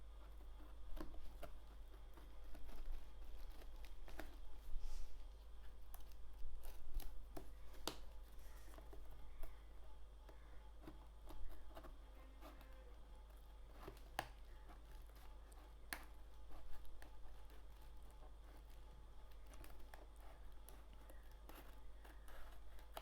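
A shipping box being opened by hand: irregular cutting, tearing and rustling of tape and packaging, with scattered sharp clicks.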